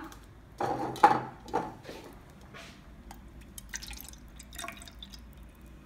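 Water poured from a plastic bottle into a plastic measuring jug, trickling and splashing irregularly. A few louder sharp knocks or splashes come about a second in.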